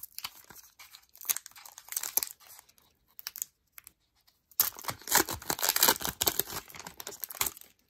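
Foil wrapper of an Upper Deck Artifacts hockey card pack being torn open by hand and crinkling. Scattered crackles at first, then, after a short pause about halfway through, a louder, denser stretch of tearing and crinkling.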